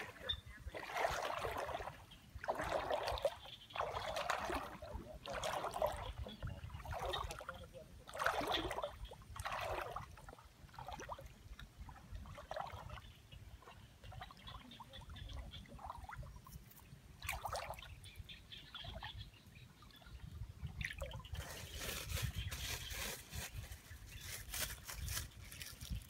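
Shallow muddy water sloshing with each wading step, a splash about every second, then quieter trickling and splashing as hands work in the water among reeds.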